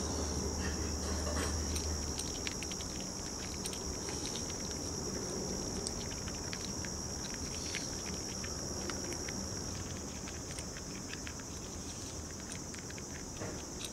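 A chipmunk cracking and nibbling seeds and corn: a steady run of quick, small clicks. Under it, a steady high-pitched insect drone.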